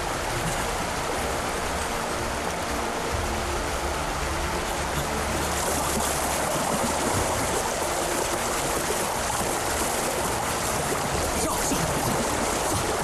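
Rushing river water: a steady, even rush of flowing water.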